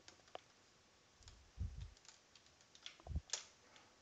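A few faint, scattered computer keyboard keystrokes and clicks, with two soft low thumps, about a second and a half in and about three seconds in.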